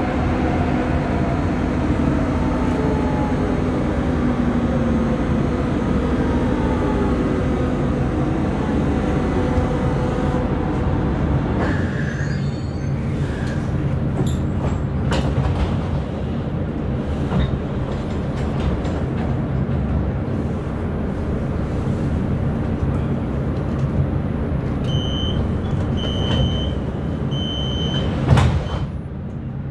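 Duewag B80D light-rail car's traction drive whining down in pitch as the car slows to a stop, over the rumble of the running gear. Near the end come three short high beeps and then a loud thump, the door-closing signal and the doors shutting.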